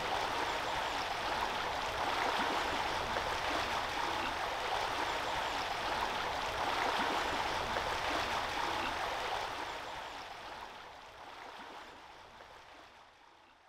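Steady running water of a river, fading out over the last few seconds.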